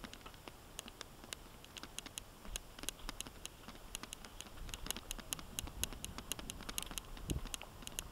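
Mountain bike rolling along a rough dirt single track: irregular clicks and rattles from the bike over bumps, several a second, with bursts of low rumble from the bumps and wind on the microphone.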